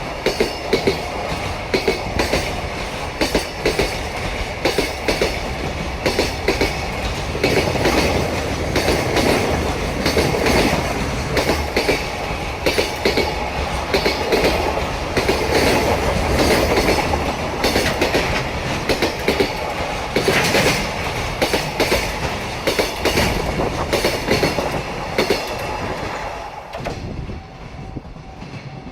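A JR Freight container train's long rake of Koki container flatcars rolls past, its wheels clattering over the rail joints in a rapid, regular rhythm. The clatter fades away near the end as the last wagons go by.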